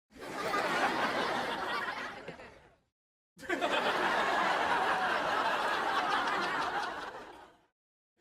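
Sitcom laugh track: canned studio-audience laughter in two separate clips. The first lasts about three seconds and the second about four, and each fades and cuts to dead silence.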